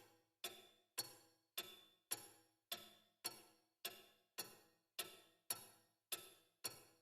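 Faint background music: a single instrument playing soft, evenly spaced notes, a little under two a second, each one ringing out and dying away.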